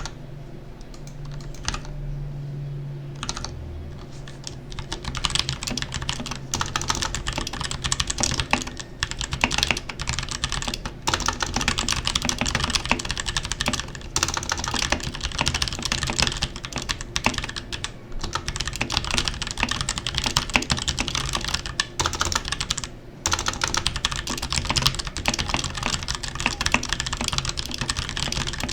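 Royal Kludge RK61 60% mechanical keyboard with tactile brown switches, about a year old, being typed on. A few scattered keystrokes give way to fast continuous typing about four seconds in, with a brief pause near the end.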